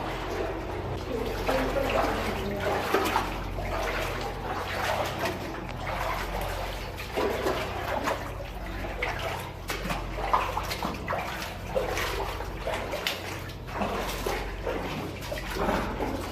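Water sloshing and splashing around the legs of people wading through a flooded tunnel, in an uneven, continuous rhythm of steps.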